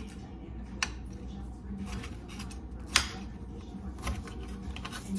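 Kitchen knife cutting red bell pepper on a cutting board: a few sharp knocks of the blade hitting the board, the loudest about three seconds in, with quieter slicing between.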